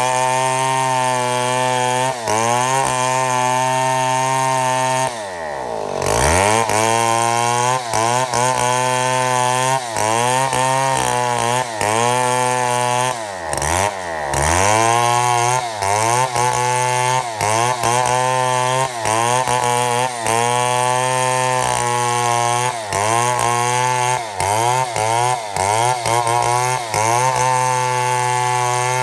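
Chainsaw running at high revs under load while ripping a mahogany log into boards. Its pitch dips and recovers about once a second as the cut loads it, and twice the engine drops nearly to idle and revs back up.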